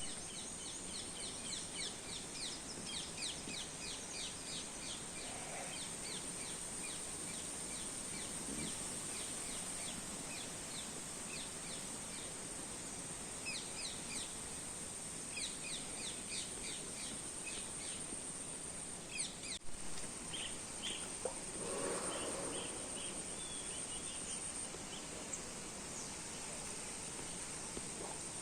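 Outdoor ambience of birds calling in runs of rapid, repeated chirps, over a steady hiss and a constant high-pitched whine.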